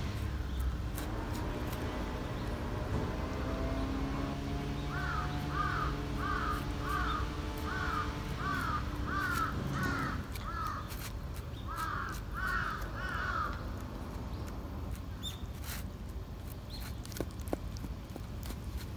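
A bird calling in a steady run of about a dozen short, arching calls, roughly one and a half a second, from about five seconds in until about thirteen seconds in. Small clicks from a cat eating out of a plastic bowl come and go throughout, over a low hum that stops about ten seconds in.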